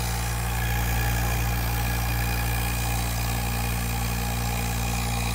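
Robinair SPX CoolTech 15600 two-stage rotary vacuum pump running with a steady hum. It is pushing excess oil out through its exhaust, which the owner puts down to probably overfilling it with oil.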